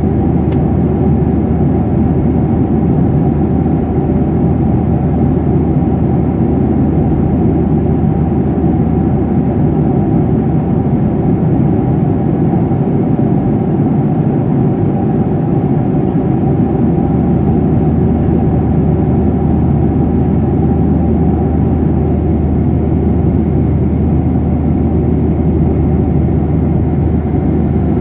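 Steady drone of a jet airliner in flight, engine and rushing airflow heard from inside the passenger cabin, low and even without a break.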